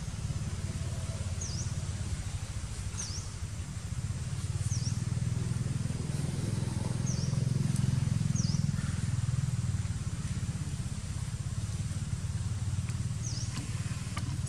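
Outdoor background of a steady low rumble that swells and fades in the middle, with about six short, high chirps scattered through it.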